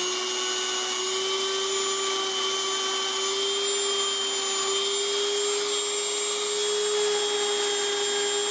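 Handheld rotary tool with a felt buffing wheel running at high speed in a steady whine that creeps slightly up in pitch, buffing a small steel revolver part with polishing compound.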